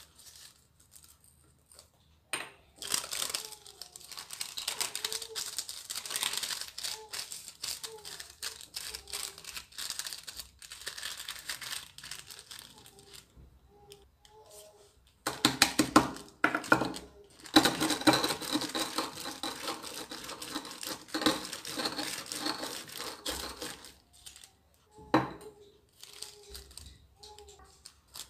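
A sheet of white paper being folded and creased by hand, crinkling in long stretches that are loudest from about halfway through. It is wrapped around a pinch of gum arabic that is to be crushed to powder. A single sharp knock comes near the end.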